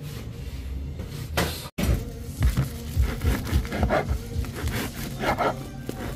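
Bread knife sawing through a crusty ciabatta on a wooden cutting board, in repeated rasping strokes with light knocks on the board, starting about two seconds in.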